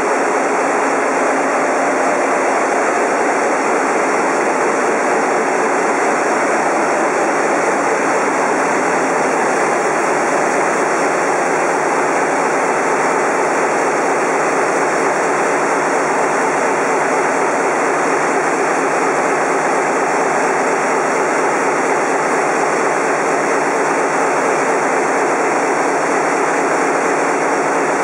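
Large marine diesel engines running in a ship's engine room: a loud, steady drone with no change in pace.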